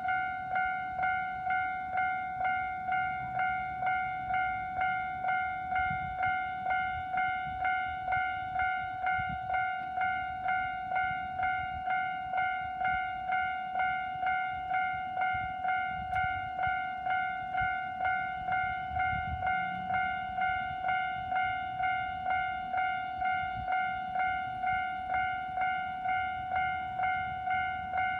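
Japanese level crossing's electronic warning bell ringing steadily, a clanging tone repeated about three times every two seconds, with a low rumble underneath.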